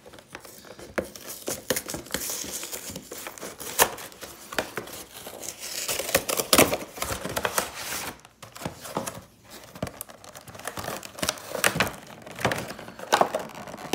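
Plastic wrapping crinkling and tearing as a Pokémon card collection box is opened, with irregular rustles and clicks of the cardboard box and its contents being handled.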